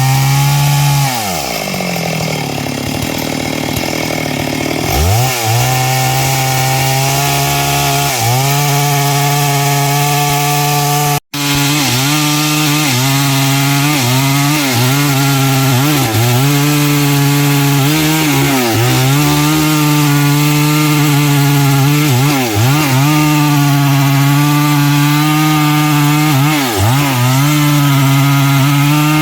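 Stihl MS 382 two-stroke chainsaw with a 24-inch bar cutting wood at full throttle, its pitch sagging briefly again and again as the chain bites under load. A second or so in it drops back toward a lower speed for a few seconds, then revs up again; the sound cuts out for an instant about eleven seconds in.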